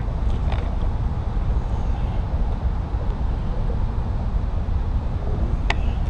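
Steady low rumble of wind buffeting the microphone, with a sharp click right at the start and another near the end.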